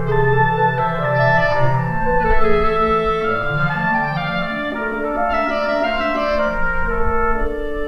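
Slow instrumental background music: sustained, overlapping notes forming chords that shift every second or so over low held notes.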